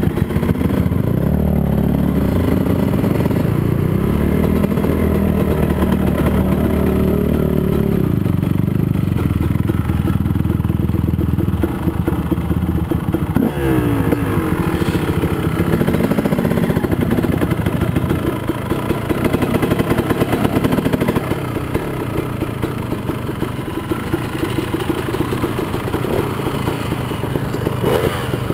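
ATV engine running under the rider, its revs rising and falling as it is ridden across the dirt lot, then settling quieter and steadier for the last several seconds as it slows among the parked bikes.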